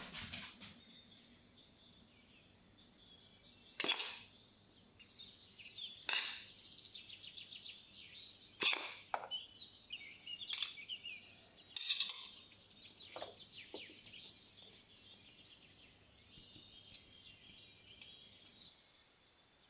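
A ceramic dish clinking and knocking against the rim of a plastic food-processor bowl while flour is tipped and shaken out of it. There are several sharp clinks spread over the first dozen or so seconds, with soft scraping and sliding between them.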